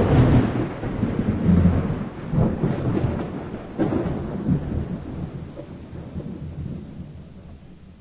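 Thunder sound effect: a loud crack at the start, then rolling low rumbles with further cracks about two and a half and four seconds in, slowly fading and cutting off suddenly at the end.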